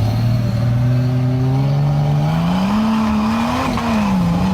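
A vehicle's engine under load, its pitch climbing steadily for about three seconds and then rising and falling as the throttle varies.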